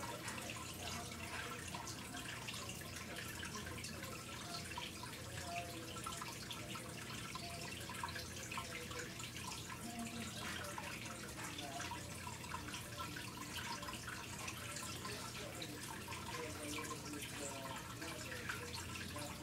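Water trickling and bubbling steadily in a turtle's aquarium, with a low steady hum beneath.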